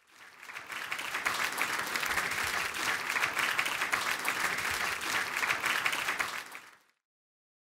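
Audience applauding, swelling in over the first second and fading away near the end.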